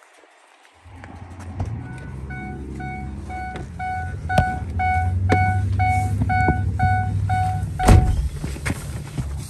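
Ford E-350 van's dashboard warning chime beeping steadily, about two and a half beeps a second for some six seconds, the alert that sounds with the driver's door open. It stops with a heavy thump near the end as the door shuts, over low rumble and handling knocks.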